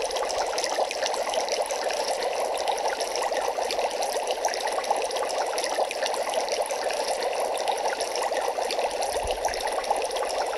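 Steady underwater water sound effect: an even watery rush with a fine crackle.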